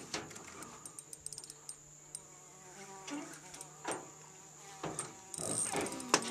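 Spinning reel being worked against a hooked peacock bass, with scattered sharp clicks from the reel and rod over a steady high-pitched buzz. The buzz grows brighter about five seconds in.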